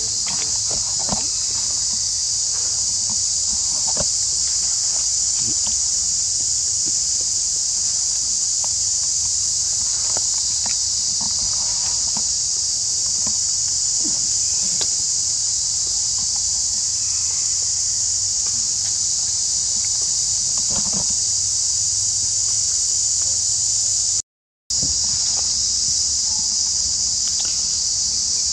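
Steady, high-pitched insect chorus, with faint rustles and small ticks underneath. It cuts out completely for a split second near the end.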